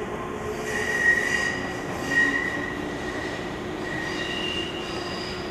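Shizuoka Railway 1000-series electric train pulling away from the station on a curve, its wheels squealing in high-pitched spells, strongest about a second and two seconds in and again near the end, over a steady hum and rolling noise.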